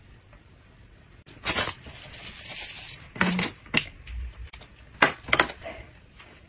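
Chopsticks clinking against ceramic plates and bowls: a handful of separate sharp clicks, the first about a second and a half in, the rest spread through the second half.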